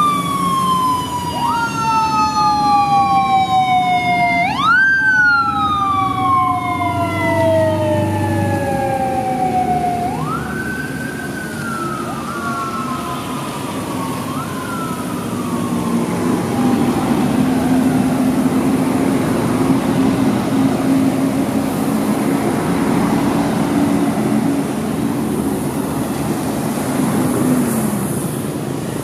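Police motorcycle siren wailing: each note jumps up quickly and then slides slowly down, repeating every few seconds and fading out after about fifteen seconds, over steady traffic noise. Later a low engine hum runs under the traffic and drops in pitch near the end.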